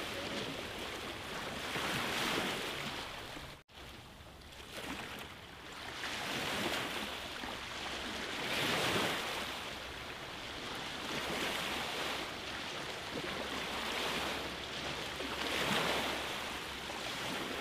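Small bay waves washing up on a sandy beach, the wash swelling and fading every two to three seconds. The sound drops out for an instant about four seconds in.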